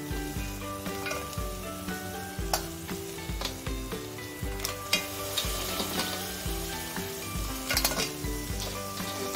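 Raw crab claws and legs being tipped and pushed by hand into an aluminium pot of frying onion masala: a steady sizzle with scattered sharp clacks of shell against the pot.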